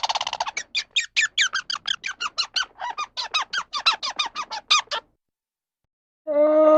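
An animal squeaking over and over: a quick run of short, high, falling squeaks, about five or six a second, that stops suddenly near five seconds in. Near the end a low, drawn-out call begins.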